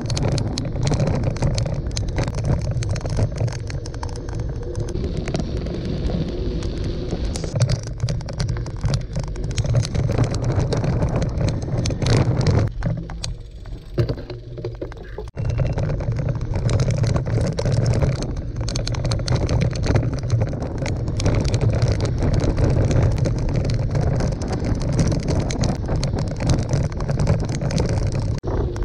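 Wind rushing over a GoPro microphone mixed with gravel-bike tyres rolling on a dirt road. The noise drops quieter for a couple of seconds about halfway through, then jumps back up suddenly.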